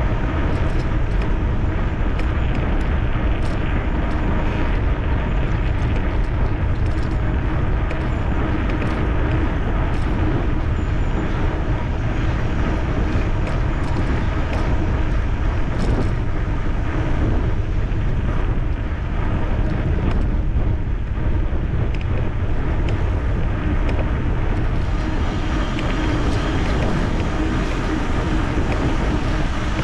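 Steady rush of wind on the microphone and rolling noise from riding an electric bicycle, unbroken throughout.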